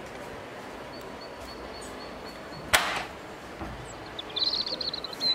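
A single short swish about three seconds in over a steady background hiss, followed near the end by a quick run of high chirps.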